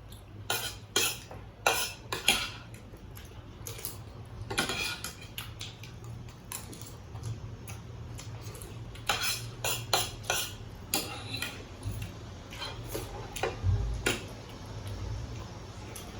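Cutlery clinking and scraping against plates during a meal, in scattered clusters of sharp clicks with short pauses between, over a low steady hum.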